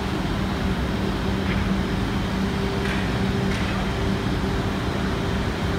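CNC knife grinding machine running: a steady motor hum over continuous machine and hall noise, with a few faint ticks.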